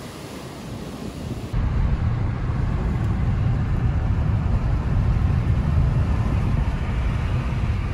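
Wind buffeting the microphone over surf, cut off suddenly about a second and a half in. Then the steady low rumble of road and engine noise inside a moving car.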